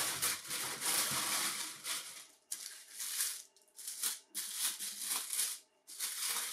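Tissue paper rustling and crinkling as hands pull a sneaker out of its wrapping in a shoebox. There is a continuous rustle for about two seconds, then a run of shorter rustles with brief pauses between them.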